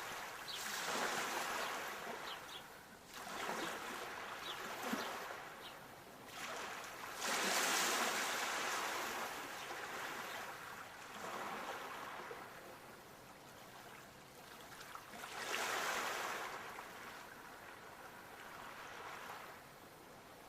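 Sea waves washing ashore, the surf swelling and falling back in repeated surges, the biggest about a third of the way in and another near three-quarters.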